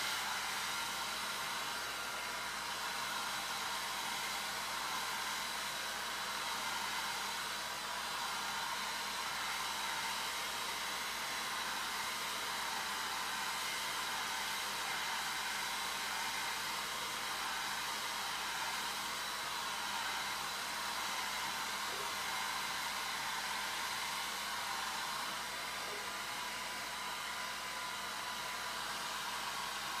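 Braun Silencio 1250 hairdryer running steadily, an even rush of air with a faint high whine.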